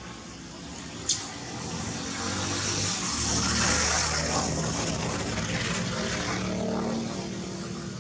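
A passing engine, growing louder to its peak about halfway through and then slowly fading. There is a single sharp click about a second in.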